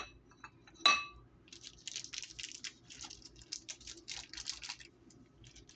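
A sharp clink, then a louder ringing clink of dishes about a second in, followed by about three seconds of rustling handling noise while food is being prepared.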